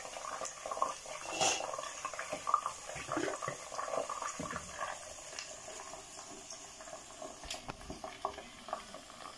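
Blended tomato, pepper and onion purée pouring from a blender jug into a pot of hot red palm oil and onions: a wet, irregular splashing and gurgling pour.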